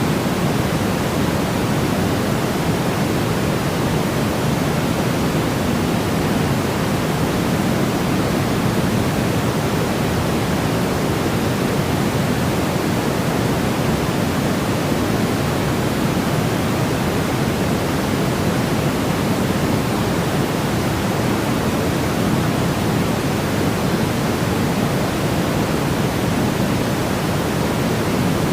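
Steady white noise for infant sleep: an even, unchanging hiss weighted toward the low end, without any breaks or events.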